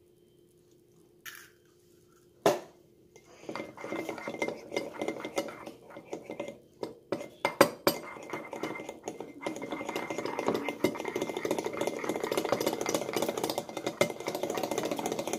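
A single sharp knock about two and a half seconds in, then a utensil stirring quickly in a mug, clinking rapidly against its sides: an egg being beaten into the mug-cake batter of butter and cocoa.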